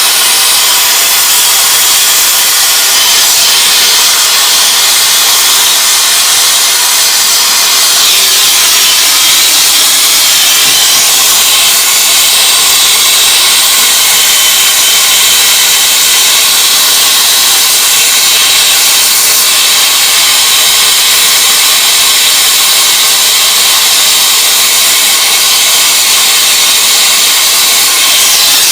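Acetylene torch flame hissing steadily while heating copper tubing joints for silver soldering.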